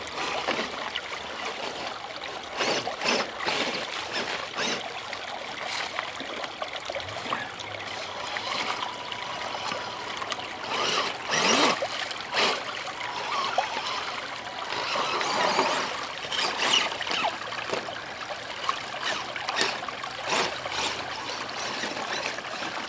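A stream trickling steadily, with irregular crunches and scrapes over it.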